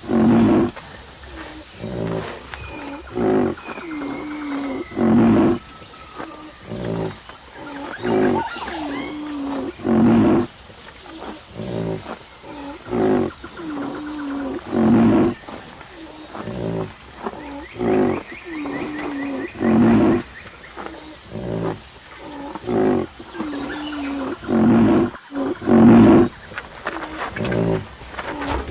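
Rhinoceros calling over and over: short, deep pitched calls about once a second, with a louder one every five seconds or so.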